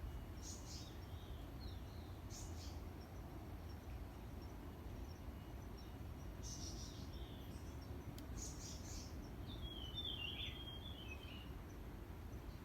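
Wild birds calling: short high calls every couple of seconds, then a lower warbling phrase about ten seconds in, over a steady low rumble.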